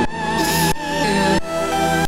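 Background music with sustained melodic tones and a regular pulse, chords changing about every two-thirds of a second.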